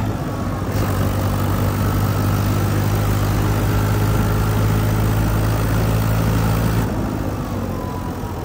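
A tractor's diesel engine runs steadily at road speed with an even, low hum. About seven seconds in, the note eases slightly and grows a little quieter.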